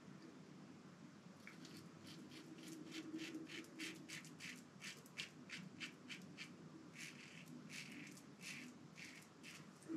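Merkur 37C slant-bar safety razor scraping through lathered beard stubble in short, quick strokes, faint, about two or three a second, starting about a second and a half in.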